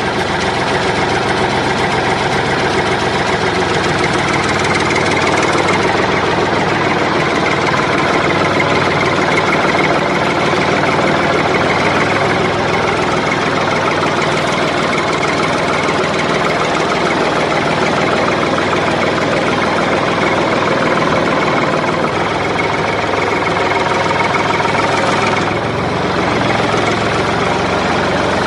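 Tractor engine idling steadily, a sound effect laid over a toy tractor that has no engine of its own. It drops briefly in level near the end.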